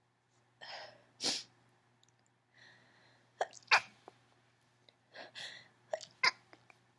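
A woman sneezing repeatedly in an allergy sneezing fit, about three times, each sneeze preceded by a quick breath in. The sneezes are mostly stifled, coming out as short, sharp bursts.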